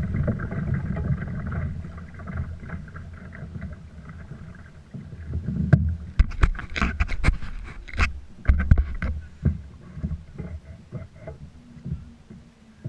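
Sounds of a fishing kayak on the water: a low rumble at first, then a cluster of sharp knocks and splashes against the hull about halfway through.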